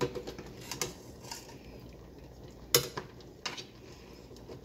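Metal ladle knocking and clinking against the side of a stainless-steel pot as the broth of beef paya is stirred: four separate knocks, the loudest just under three seconds in.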